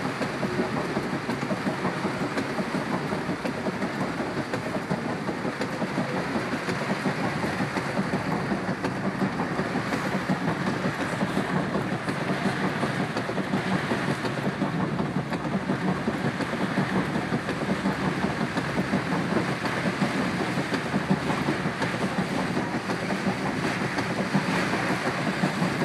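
Heavy rain pouring down onto a street under floodwater: a steady, even hiss of falling rain and running water with no breaks.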